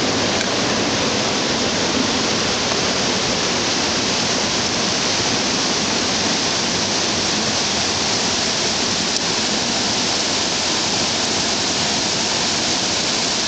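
Mountain river rapids tumbling over boulders: a steady, unbroken rush of whitewater.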